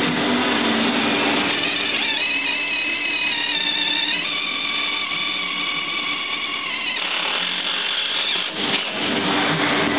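Cordless drill motor running for about five seconds as a steady whine that steps slightly in pitch partway and stops about seven seconds in, over a constant background hum.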